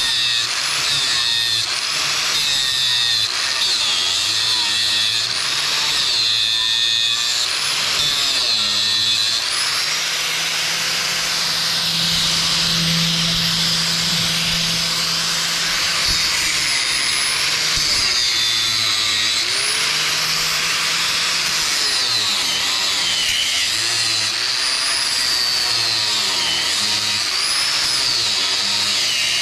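Electric angle grinder grinding off old nails that stick up out of a wooden deck board. It runs without a break, its high whine sagging and recovering as it bites into each nail, with a steadier stretch in the middle.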